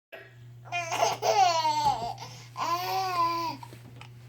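A baby babbling: two long, high-pitched vocal sounds, the first sliding down in pitch, over a steady low hum.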